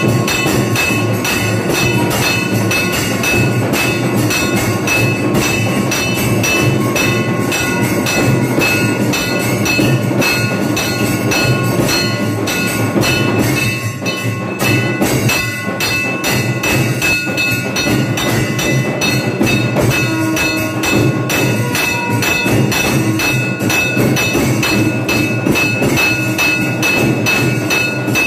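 Temple bells ringing in a rapid, continuous clangour, with drum beats underneath, as they do during the lamp-waving aarti before the deity. It is loud and steady, with a brief dip about fourteen seconds in.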